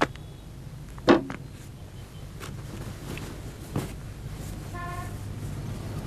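A steady low background hum with a sharp knock about a second in and a fainter one near four seconds, then a short tooting tone, like a distant horn, near five seconds.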